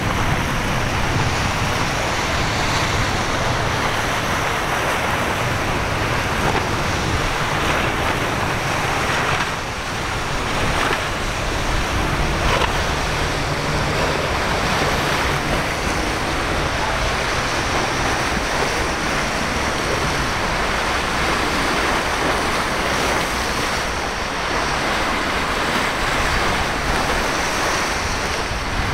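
Surf and churning water with wind buffeting the microphone, under the low drone of outboard boat engines running through the waves.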